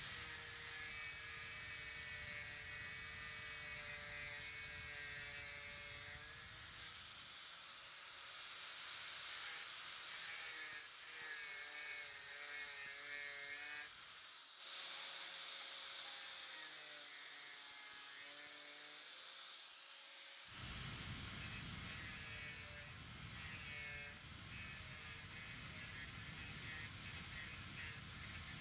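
Small electric hand tool motor running with a steady whine that shifts in pitch several times as it works, with a low rumble under it at the start and again in the last several seconds.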